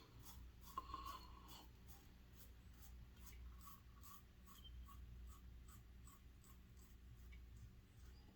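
Faint, short scraping strokes of an adjustable double-edge safety razor cutting through lathered stubble, about two a second.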